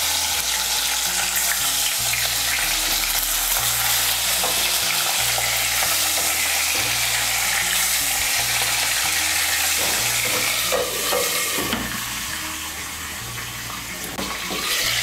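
Shing fish (stinging catfish) frying in hot mustard oil in a kadai: a loud, steady sizzle with spitting oil. It turns quieter and duller near the end, once the glass lid is on the pan.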